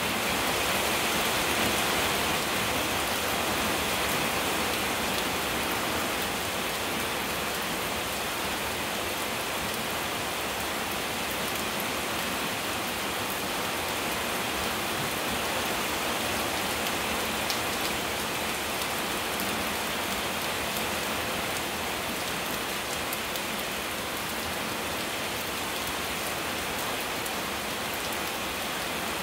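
Heavy rain falling on a paved lane and tree leaves: a dense, even hiss of countless drops and splashes, easing slightly after the first few seconds.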